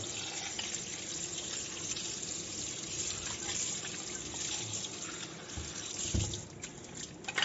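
Tap water running and splashing in a stainless steel sink as a plastic coffee powder box is rinsed under the stream to wash out coffee grounds. The water sound drops near the end, with a couple of dull knocks as the part is handled.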